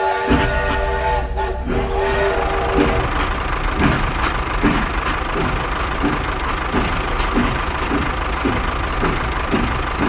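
Battery-powered toy steam train running on plastic track: electronic whistle-like tones for the first few seconds, then a steady motor whir with regular clicks about every three-quarters of a second.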